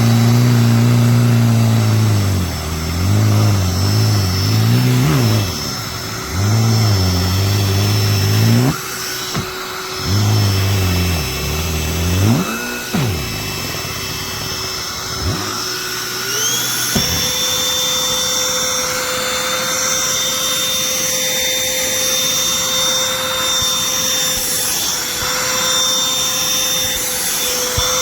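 Black+Decker Dustbuster cordless handheld vacuum (HHVK515JP07) running with a steady motor whine, which jumps up in pitch about sixteen seconds in. Over the first half, a low engine sound rises and falls repeatedly underneath it, like a vehicle revving.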